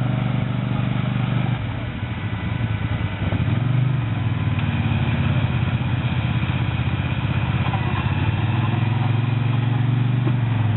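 ATV engine running under load, easing off briefly about two seconds in and then pulling steadily again.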